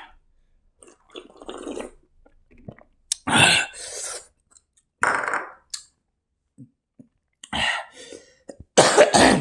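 Close-miked eating sounds: wet chewing and mouth noises in about half a dozen separate short bursts, with the loudest near the end.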